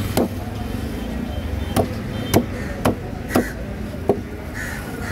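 Heavy knife chopping on a wooden fish-cutting block: about six sharp, hard knocks at uneven intervals over steady outdoor market noise.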